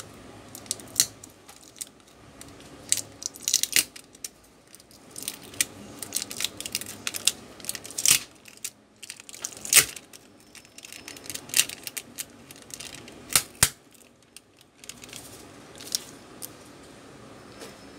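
Irregular small clicks, taps and plastic crinkling from hands working on an opened Realme C12 smartphone: flex cable connectors being undone and a clear plastic film being handled. The loudest click comes about ten seconds in.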